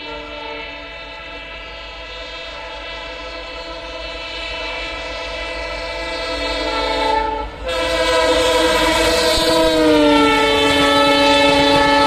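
EMD diesel locomotive sounding its multi-tone horn in one long, continuous blast as the express approaches at speed, growing steadily louder, with a momentary break about seven and a half seconds in. Near the end the horn's pitch drops as the locomotive passes, and the rumble of the train on the rails comes up under it.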